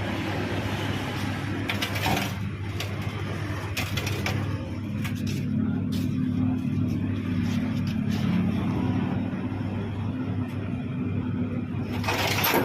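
Front-loading washing machine drum running rough: a steady low rumble with irregular knocking and rattling, a little louder near the end. The uploader puts the noise down to a broken drum.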